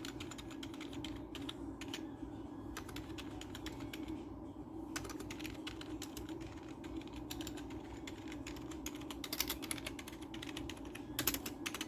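Keycaps of a K-Snake KM320 keypad being pressed and released one after another, a run of short clicks that comes thicker near the end.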